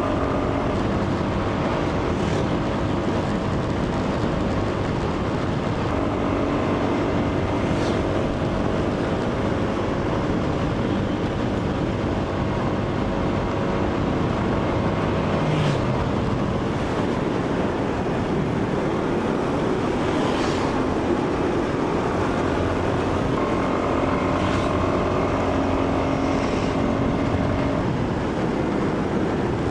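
Yamaha Cygnus X scooter's single-cylinder four-stroke engine running steadily under way, with wind noise on the microphone; the engine note shifts in pitch a few times.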